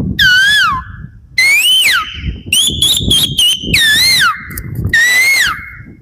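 A man whistling an imitation of the Asian koel's call with his hand at his mouth: about five loud whistled calls, each sliding down and back up in pitch, with a quick stutter of short, even notes in the middle.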